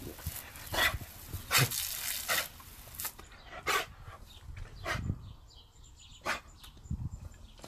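Rottweiler puppy giving several short, sharp barks at irregular gaps. Water sprays from a garden hose through the first few seconds, then stops.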